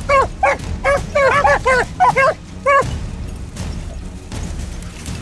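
Beagles baying on a rabbit's track: a quick run of short, arched bays, sometimes overlapping, through the first three seconds, then a lull of about two seconds.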